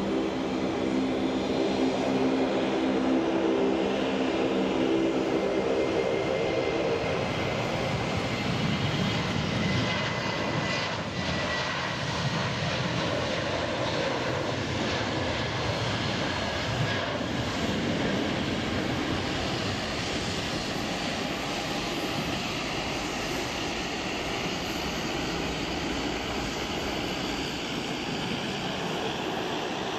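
Boeing 737-800's CFM56-7B turbofan engines at takeoff thrust through the takeoff roll and liftoff, a steady jet roar. A humming engine tone stands out for the first several seconds before it gives way to broad rushing noise, and a faint rising whine comes in near the end.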